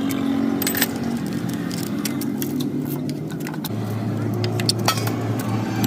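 Motorcycle engine running steadily, with scattered sharp metallic clicks.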